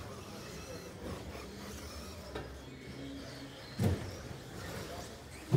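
Electric Traxxas Slash RC short-course trucks racing, a steady mix of motor whir and tyres on the track surface. Two hard thumps stand out, one about four seconds in and a louder one near the end.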